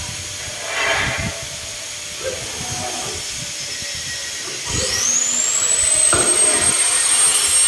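An electric power tool's motor spins up about two thirds of the way through and settles into a steady high whine. Before it there are light knocks and faint voices.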